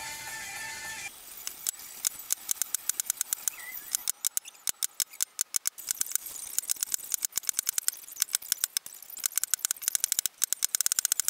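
Brass mallet tapping a steel leather stamping tool into a strip of leather on a wooden block: sharp light taps, several a second, quickening into a fast run near the end. Background music cuts off about a second in.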